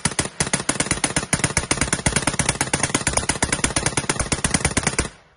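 M1919 Browning belt-fed machine gun firing one long burst of about ten shots a second. The burst cuts off suddenly about five seconds in.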